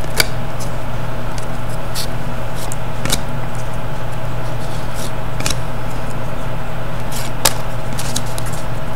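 Trading cards being handled, giving a few light clicks and scrapes as they are shuffled and set down, over a steady low hum.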